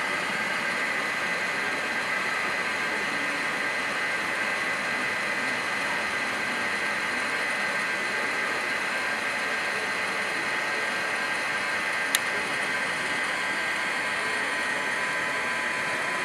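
Steady hissing ambient noise with a faint high buzz in it, and one sharp click about twelve seconds in.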